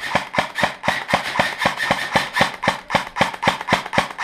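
Airsoft gun firing a long, steady full-auto burst close by: sharp, evenly spaced clacks at about seven a second, stopping just after the end.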